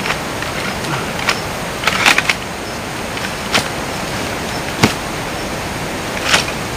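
Frame of a Coleman reclining folding camping chair clicking and clacking as it is set up: about half a dozen sharp clicks, a small cluster of them about two seconds in, over a steady hiss.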